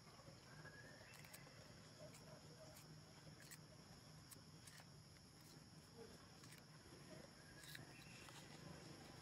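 Near silence: faint outdoor background hiss with a few soft scattered clicks and two faint short chirps.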